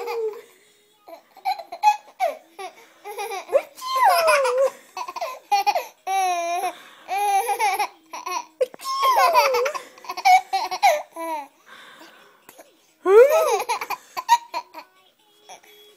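A baby laughing hard in repeated high-pitched bursts, with short breaks between them.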